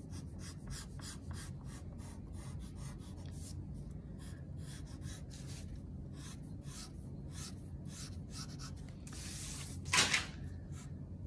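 Chalk pastel stick scraping over drawing paper in quick short strokes, about three or four a second, as an area is coloured in. One louder, longer rub about ten seconds in.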